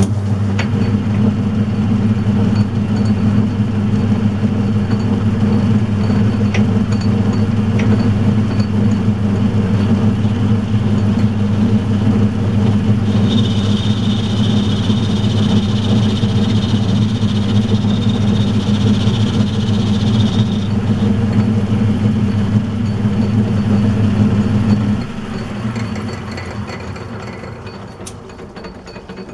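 Metal lathe running under power with a steady motor hum. From about halfway a higher hiss lasting several seconds is the tool cutting to deepen the sleeve's bore. Near the end the motor is switched off and the machine runs down.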